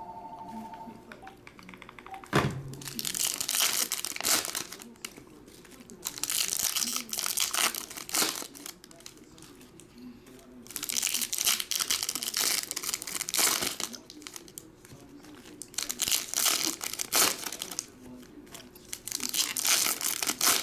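Foil trading-card pack wrappers being torn open and crinkled, in repeated bursts of a couple of seconds each, with a sharp knock about two seconds in.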